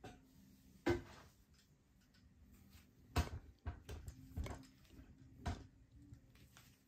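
A handful of light knocks and clicks from parts and tools being handled on a workbench, about six in all, the sharpest about a second in and just after three seconds, over a faint steady hum.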